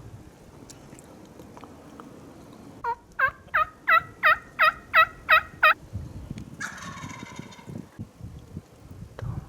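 Wild turkey calling: a run of about nine loud yelps, about three a second, then a shorter rattling gobble a second later. Low rustling thumps follow near the end.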